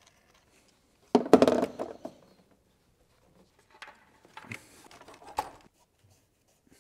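Hand-work noises in a car's engine bay: a short clatter of sharp knocks about a second in, then scattered light clicks and rustles as hoses and parts are handled.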